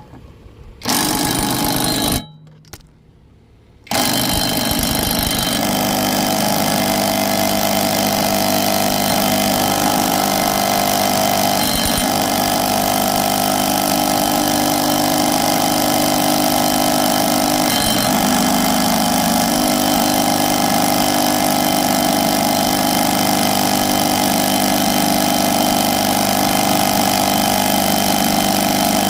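Bauer brushless 3/8-inch drive impact wrench hammering on a lawnmower blade bolt. It gives a short burst about a second in, then hammers steadily for over twenty seconds without breaking the seized bolt free.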